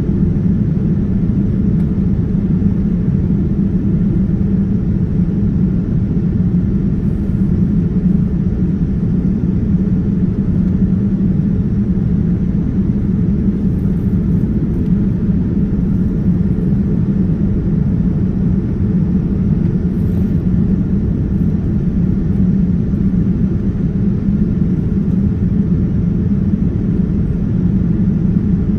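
Steady low rumble of a Boeing 787-9's engines and rushing airflow, heard inside the passenger cabin in flight.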